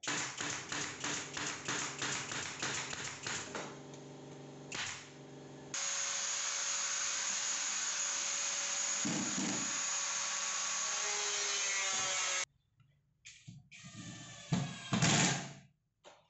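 Woodworking power tools at work on plywood in a workshop, in edited cuts. First comes a quick run of regular strokes, about four a second. Then a loud steady running noise lasts about six seconds and cuts off suddenly, followed by a few short bursts of tool noise.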